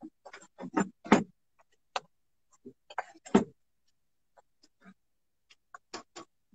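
A metal utensil knocking and scraping against a karahi as the curry is stirred: irregular short clicks and knocks, the loudest about a second in and again a little after three seconds.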